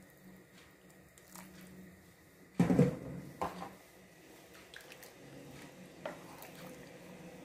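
Cookware being handled on the stove: one loud clatter of a pot and utensil a little over two and a half seconds in, a smaller knock just after, then a few light taps.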